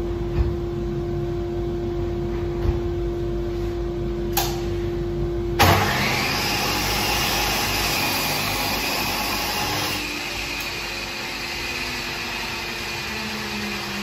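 Chop saw running with a steady motor whine, then cutting through a wooden cushion block from about six seconds in. The cut lasts about four seconds, and a steady machine noise carries on after it.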